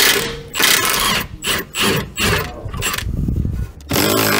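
A cordless impact wrench and a hand ratchet undoing the rear strut's mounting bolts, in a series of short rasping bursts with a denser rattle late on. This is the factory rear strut being unbolted for removal.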